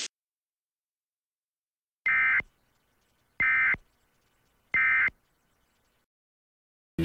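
Emergency Alert System end-of-message (EOM) data tones: three short identical bursts of the digital alert code, each under half a second and about a second and a half apart, signalling that the alert broadcast is over.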